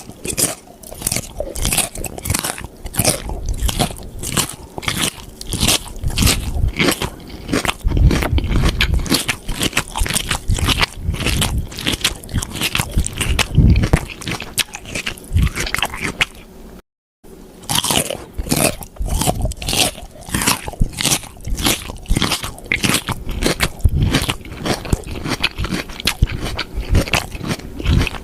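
Crisp food being bitten and chewed close up: dense, rapid crunching. It comes in two takes, split by a brief silent gap about 17 seconds in.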